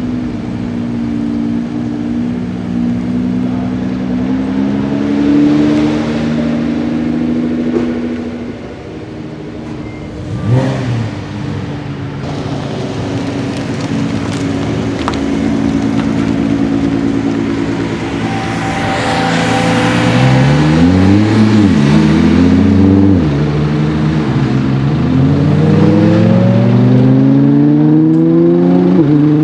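Nissan GT-R R35's twin-turbo V6 pulling away and accelerating, its note climbing and dropping back with each gear change. It is loudest about two-thirds of the way through, when the car accelerates hardest.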